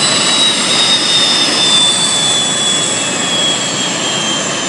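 Turbojet engine of a jet-powered drag vehicle running loud, a steady rushing noise with a high whine that slowly falls in pitch.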